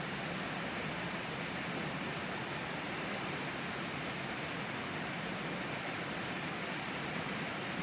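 Tama River flowing, a steady even rush of water with no breaks.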